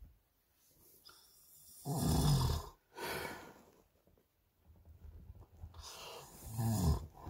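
A man snoring in deep sleep, picked up by a phone inside a truck cab: two loud snores, about two seconds in and near the end, each falling in pitch, with a breathy exhale after the first.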